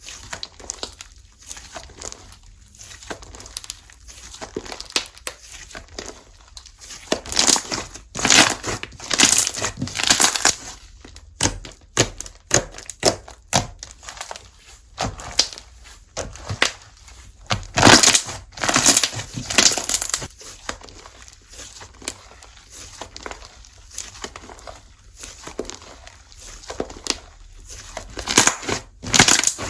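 Slime being squished and kneaded by hand, giving irregular bursts of crackling and crinkling. The bursts are loudest in two stretches, about a third of the way in and again about two-thirds of the way in.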